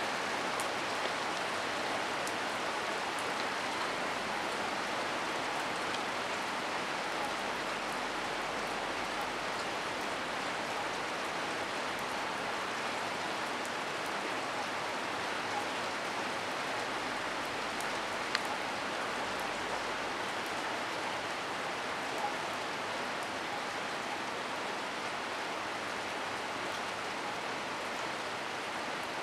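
Heavy rain falling steadily as an even hiss, with a few sharp ticks now and then, the loudest about two-thirds of the way through.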